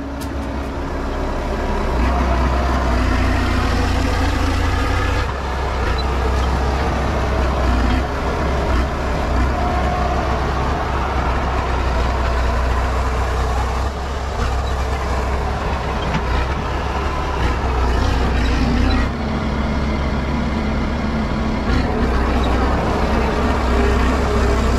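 Crawler bulldozer's diesel engine running hard with a deep, steady rumble as it clears trees. The sound shifts abruptly a few times, at about 5, 14 and 19 seconds in.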